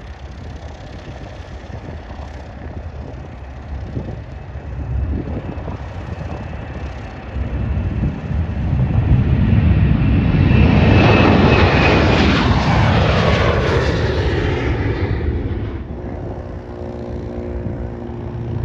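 Boeing 737 jet airliner taking off: the noise of its twin turbofan engines swells over several seconds. It is loudest, with a high whine on top, as the jet lifts off and passes, then fades away. A fainter steady hum is left near the end.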